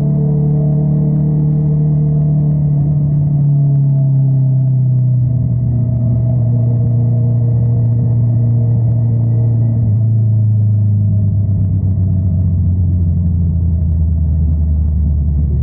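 Honda CBR650R inline-four motorcycle engine running through an Akrapovič exhaust, a steady low note whose pitch sags slowly and drops a step about five seconds in and again about ten seconds in.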